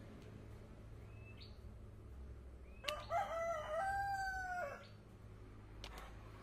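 A rooster crowing once, starting about three seconds in and lasting about two seconds, ending in a long held note.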